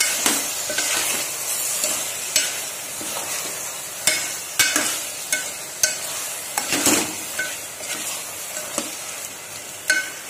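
Steel spoon stirring potato and onion sabzi in an aluminium pot, with irregular clinks and scrapes of the spoon on the pot over a steady sizzle of the frying masala.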